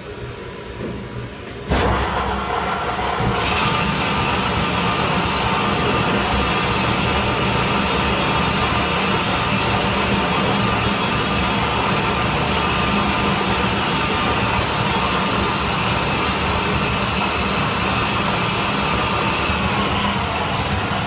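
Butcher Boy 2000-66 mixer grinder switched on about two seconds in, its electric motor drive then running steadily with a low hum. A higher-pitched layer joins a second or so later, and near the end one tone begins to fall.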